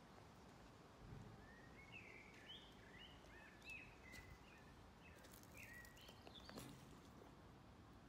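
Faint songbird chirping: a quick run of short, high chirps from about a second and a half in until about six seconds, with a few sharp clicks and a low bump near the end.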